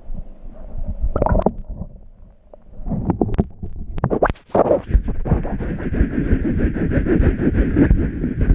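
Muffled water sloshing and rumbling with scattered knocks, picked up by a camera held in the water; it grows steadier and louder about halfway through.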